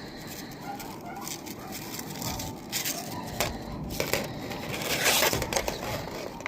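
Crinkling, scraping handling noises from work on a roof-mounted dryer vent cap as it is taken off, with a louder rasping stretch about five seconds in.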